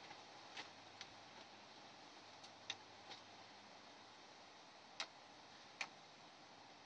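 A hen's beak pecking at a motorcycle's chrome engine cover: about six faint, sharp ticks at irregular intervals.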